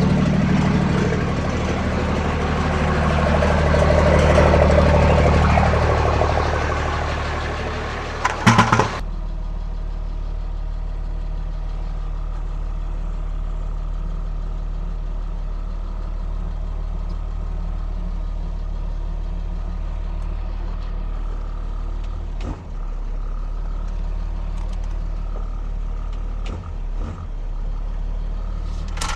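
A motor vehicle engine running steadily. For the first several seconds it is louder, with a noisy swell and a brief clatter. It then settles into a quieter, steady idle with a few short knocks.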